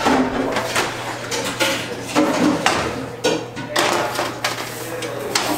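A metal baking sheet carrying two baking dishes clattering and scraping against the metal oven racks as it is slid into the oven, with a string of knocks.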